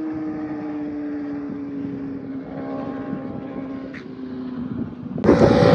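Kawasaki ZX-4RR inline-four with an Akrapovic exhaust, heard from the roadside as it pulls away after a flyby: a steady engine note slowly falling in pitch and fading. About five seconds in, a much louder engine sound with wind noise cuts in abruptly.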